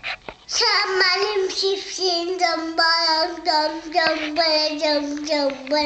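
A young child singing a slow tune, holding each note, starting about half a second in.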